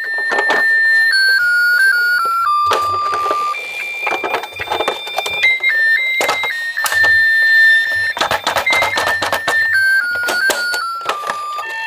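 A garbage truck's electronic jingle: a simple beeped melody, one pure note at a time, stepping down in pitch and then repeating. Many sharp clicks and knocks of miniature toy cars clattering down a slope run under it.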